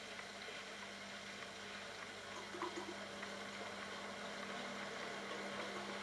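Bosch Logixx WAS32461GB washing machine drum turning with wet pillows inside, starting the final spin cycle. The motor hums steadily with water swishing and a few soft knocks, slowly getting louder.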